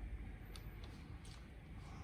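A few faint, light clicks over a low, steady hum.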